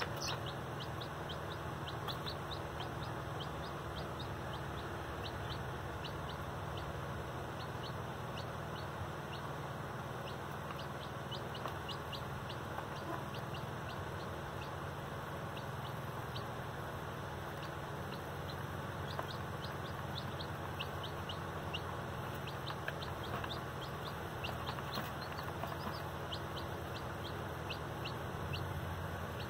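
Newly hatched chicks peeping over and over, each peep a short, high, falling cheep, over a steady low hum.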